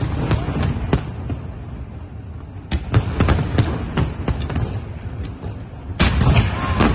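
Fireworks going off: clusters of sharp bangs and crackling bursts over a steady low rumble, with a dense flurry about three seconds in and another near the end.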